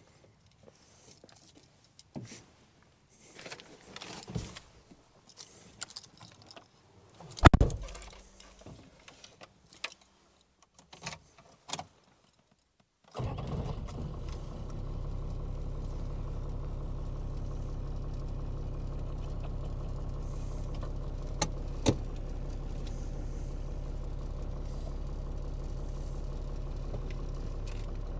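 Keys jangling and scattered clicks and knocks, with one loud thump about seven seconds in. Then, about halfway through, the 4-litre 12H-T turbo diesel of a 1988 Toyota Land Cruiser HJ61 comes in abruptly and runs at a steady, low idle.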